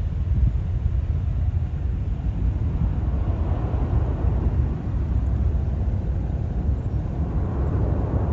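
Jet airliner engines running, heard as a loud, steady rumble that swells twice. Wind buffets the microphone throughout.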